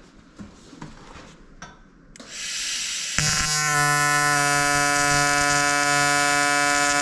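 AC TIG welding arc on thick aluminium. A hiss starts about two seconds in, then the arc strikes about a second later and holds a steady, pitched electric buzz.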